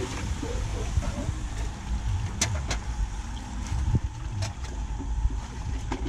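Several short sharp knocks and clicks of a hand tool striking a curbside storm drain inlet while debris is cleared from it, over a steady low rumble.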